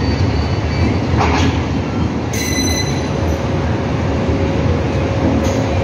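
A coupled string of Indian Railways electric and diesel locomotives rolling slowly during shunting, with a steady low rumble from the wheels and running gear. A brief, high wheel squeal comes a little over two seconds in, and a steady hum joins shortly after.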